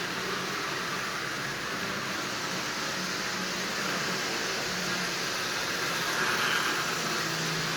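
Lionel toy train running steadily on its track: a low motor hum with the rolling rattle of wheels on the rails.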